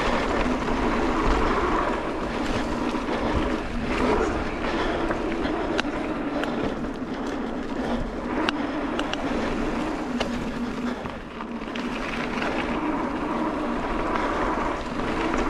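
29er mountain bike rolling fast down a dirt singletrack: a steady rush of tyre and wind noise, with the bike rattling and small clicks and knocks as the wheels go over roots and rocks.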